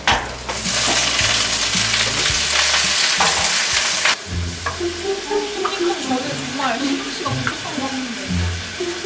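Spinach sizzling loudly in hot oil in a frying pan as the leaves are turned. The loud sizzle cuts off suddenly about four seconds in, leaving a quieter sizzle under background music.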